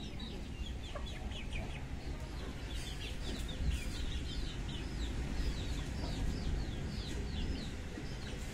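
Chickens calling as they peck at scattered azolla, a run of short high chirps about two or three a second, over a steady low rumble.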